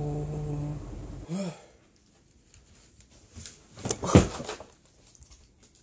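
A man's voice holding one long, drawn-out vowel for the first second or so. Then it is nearly quiet apart from a few breathy sounds close to the microphone, the loudest a sharp breath about four seconds in.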